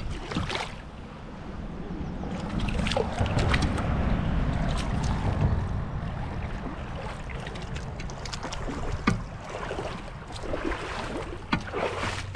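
Water splashing and sloshing in shallow water as an arrowed fish is pulled in on the bowfishing line, with a low rumble of wind on the microphone and scattered clicks and knocks, the sharpest about nine seconds in.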